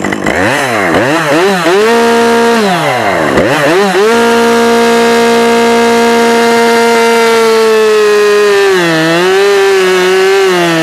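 Husqvarna 550XP Mark II two-stroke chainsaw blipped up and down a few times, then held at a steady full-throttle whine. In the last couple of seconds its pitch drops and wavers as the chain bites into a thick log under load.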